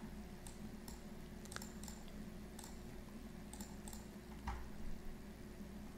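Faint, scattered clicks of a computer mouse over a low steady hum.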